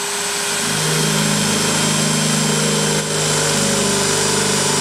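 DeWalt DCD709 cordless compact hammer drill running in plain drilling mode at its high second speed, a 13 mm metal drill bit cutting into a square steel tube. The motor runs with a steady whine and dips briefly about three seconds in.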